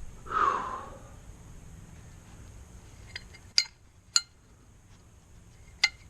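Small steel parts clinking together as they are handled and fitted, three sharp metallic clinks in the second half, after a short breath-like exhale about half a second in.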